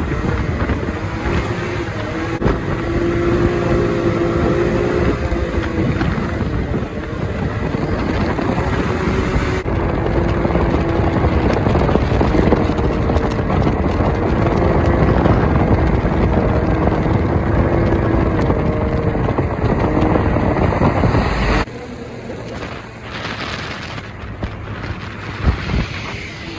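Can-Am Maverick X3 Turbo R side-by-side's turbocharged three-cylinder engine running under load on the move, its pitch wavering with the throttle, with wind buffeting the microphone. About four fifths of the way through it suddenly drops to a quieter, rougher sound.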